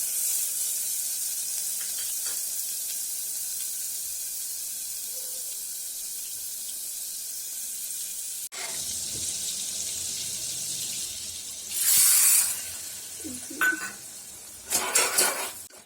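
Butter melting and sizzling in a hot pan: a steady high hiss. Two louder, short rushes of noise come near the end.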